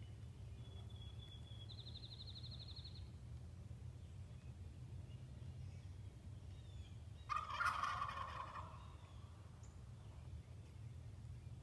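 A wild turkey gobbler gobbles once about seven seconds in, a rattling call lasting about a second and the loudest sound here. A short, high, rapid bird trill comes about two seconds in.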